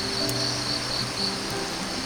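Background music of slow, held notes, over insects chirping in short, even pulses, about three a second, and a steady hiss.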